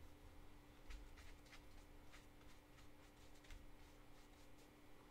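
Near silence: faint, scattered soft strokes of a watercolour brush picking up paint in the palette and working on the paper, over a faint steady hum.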